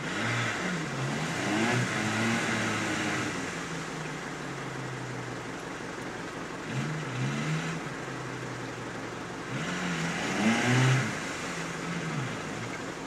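Suzuki SJ 4x4's engine revved hard in three bursts, dropping back to a steady lower note between them, as the stuck vehicle spins its wheels in deep mud. There is a hiss of mud and water spray with each burst, and the last burst is the loudest.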